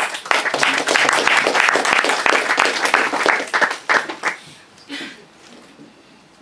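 Audience applauding, dying away after about four seconds, followed by a single brief knock.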